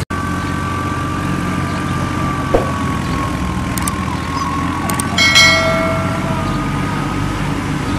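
A steady low engine rumble with a thin, slowly wavering whine over it, and a short higher pitched tone about five seconds in.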